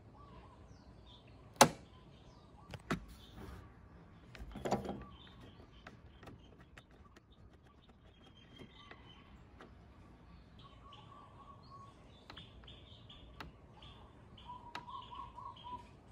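Small birds chirping and twittering in the background, with a few sharp clicks and knocks; the loudest is a single sharp click about one and a half seconds in, followed by a short clatter about three seconds later.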